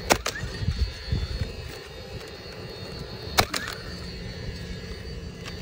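DeWalt cordless coil roofing nailer firing twice, about three seconds apart, driving nails into an asphalt shingle. Each shot is a sharp crack followed by a brief gliding whir, with a few softer thumps after the first and a steady low hum underneath.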